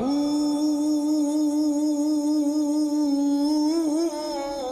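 Background music: one long held note, slid up into at the start and held steady, wavering a little about four seconds in and softening near the end.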